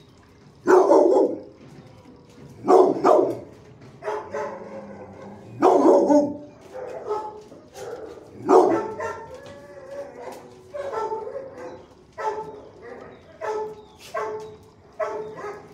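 Pit bull–type dog barking: a string of about a dozen pitched barks, the loudest in the first nine seconds, the later ones shorter and quicker.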